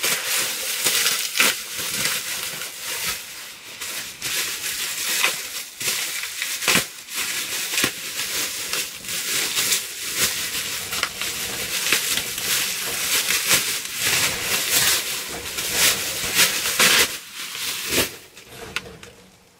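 Packaging wrap crinkling and crackling as it is pulled and torn off a framed print by hand, a dense run of crackles that stops about a second and a half before the end.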